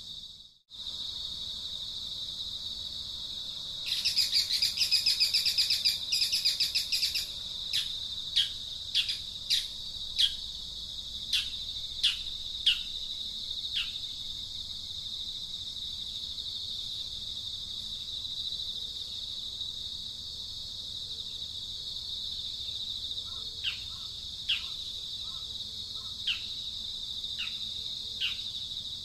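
Steady high-pitched insect drone with birds calling over it. A loud rattling buzz starts about four seconds in and lasts three seconds. Then comes a run of about a dozen short, sharp chirps that fall in pitch, and a few more of them near the end.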